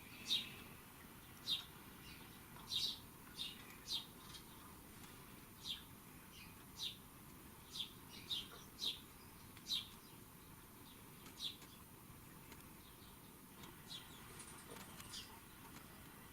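Faint, short, high bird chirps, one every second or so, over a low steady hiss.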